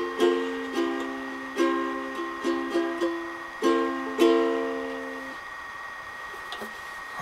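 Donner ukulele being strummed in short chord patterns, the last chord struck about four seconds in and left to ring out, fading by about five seconds in.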